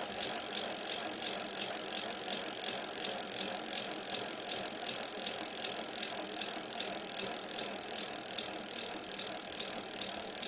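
Steady, rapid mechanical clicking over a high hiss.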